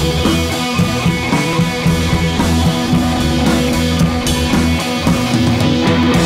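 Instrumental background music at a steady level.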